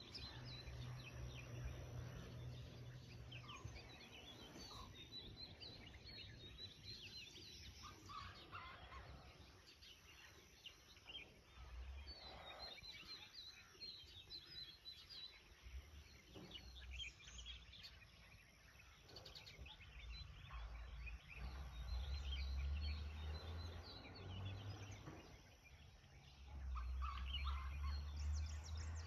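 Birds calling and chirping in a steady chorus, with a few louder, lower calls, over bursts of low rumble at the start and near the end.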